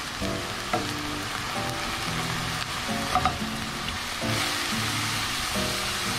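Ground meat and diced carrots sizzling in a stainless steel pan while a wooden spatula stirs them. Soft background music plays along.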